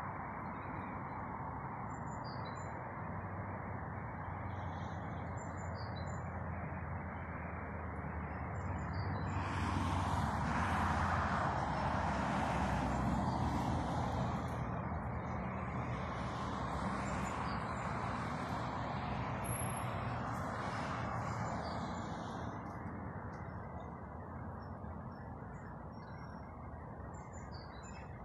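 Steady road traffic noise that swells for about ten seconds in the middle as a vehicle passes, with birds chirping faintly now and then.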